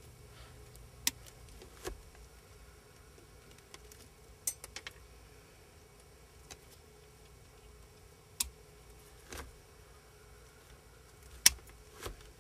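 Wire cutters snipping through small plastic zip ties: a series of short, sharp snips spread out with pauses between, the loudest one near the end.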